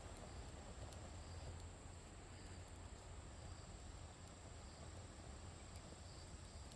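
Faint insect sounds: crickets chirping in short, even pulses about once a second over a steady high-pitched insect drone, with a few sharp small ticks.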